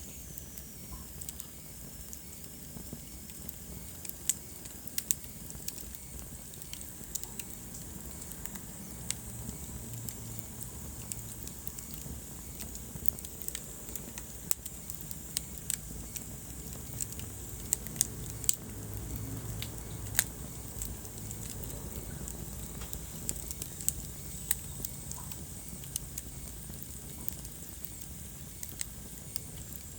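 Wood fire crackling in a fireplace: irregular sharp pops and snaps over a steady low rumble of the burning.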